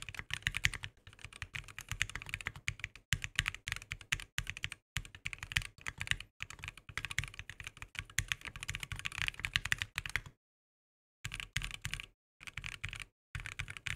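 Typing sound test on a gray aluminum Bakeneko60 60% keyboard with Korbs linear switches and ePBT cherry-profile PBT keycaps: fast, continuous typing, then a one-second stop about ten seconds in, followed by three short bursts of keystrokes.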